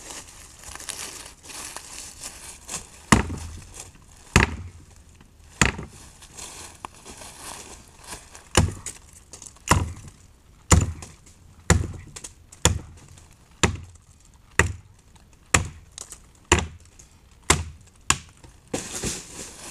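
Gränsfors Bruks Scandinavian Forest Axe chopping into a log. Three sharp strikes come a little over a second apart, then after a pause a steady run of about a dozen strikes, roughly one a second.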